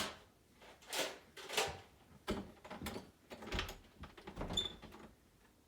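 A series of irregular knocks and scuffs, roughly half a second apart, with a short high squeak near the end.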